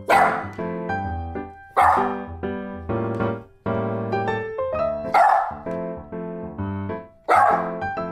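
Miniature schnauzer barking four loud, sharp barks spaced a second and a half to three seconds apart, alerting at something outside the glass door, over background piano music.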